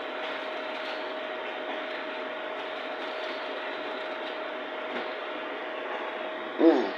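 A steady mechanical hum over a constant hiss, with a short vocal sound near the end.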